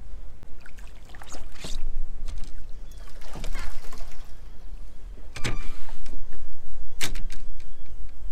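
A hooked spotted bay bass being fought and reeled in to a kayak: the fishing reel cranks, and several sharp splashes and knocks come through, the loudest about five and a half and seven seconds in. A steady low rumble runs underneath.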